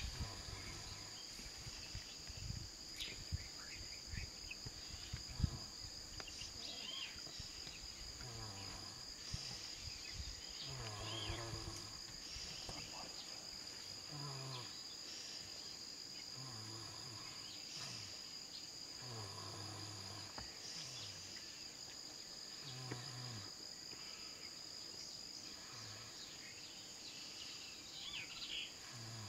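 Steady high-pitched drone of insects, with faint low voices murmuring now and then and a few soft clicks in the first seconds.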